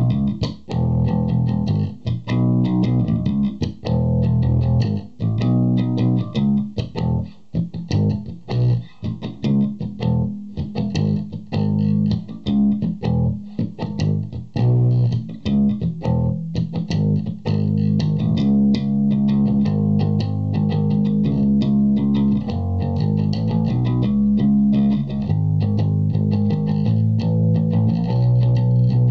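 Electric bass played fingerstyle: a Japanese '62 reissue Fender Jazz Bass through an Orange Terror Bass 1000 hybrid valve and Class D head and a speaker cabinet, with its treble, mid and bass controls flat at zero. A continuous run of plucked bass notes and lines.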